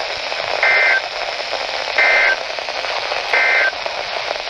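Three short bursts of NOAA Weather Radio SAME digital data tones, a warbling two-tone data squawk about a second apart over steady radio static hiss. These are the end-of-message code that closes a warning broadcast.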